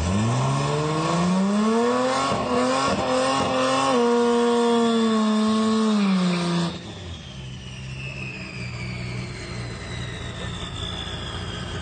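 Fourth-generation Toyota Supra's engine revving up and held at high revs through a burnout, rear tyres spinning, then shut off sharply about seven seconds in. After that the engine runs much more quietly while a thin whine slowly falls in pitch.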